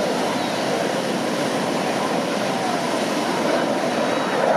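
Steady roar of an airplane making a pass, with no clear engine pitch, blended with the wash of surf.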